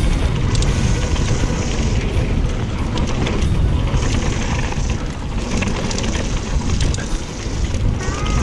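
Wind buffeting the camera microphone and tyres rumbling over a dirt trail as a mountain bike descends at speed, under background music.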